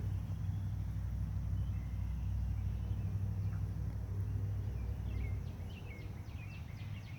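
A steady low rumble of outdoor background noise. About five seconds in, a songbird starts a quick run of short falling whistled notes, several a second.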